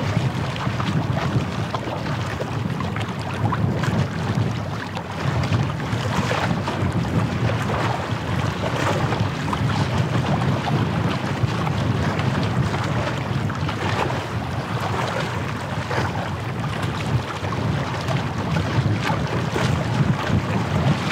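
Wind buffeting the microphone as a steady low rumble, over the wash of small waves at the shoreline.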